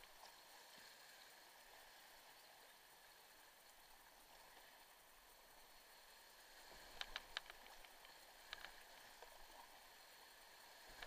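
Faint, steady rush of whitewater rapids around a kayak. A quick run of sharp clicks comes about seven seconds in, and a couple more follow a second and a half later.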